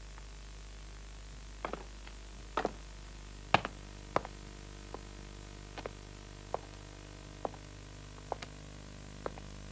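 A series of short, sharp taps or clicks, irregularly spaced at roughly one a second, over a steady low hum.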